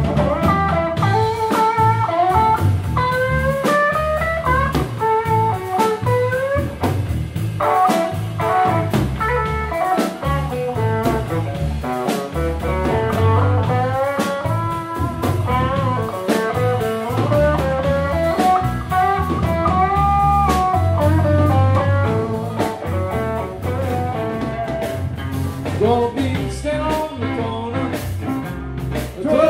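Live blues band playing: electric guitar, electric bass and drum kit, with a melodic lead line that bends in pitch.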